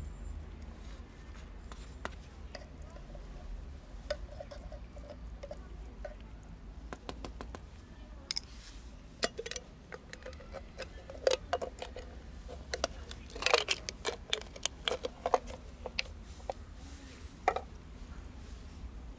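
A kitten and an adult cat eating raw minced meat from foam trays: irregular wet smacking and chewing clicks, sparse at first and coming thick and fast in the second half, over a low steady rumble.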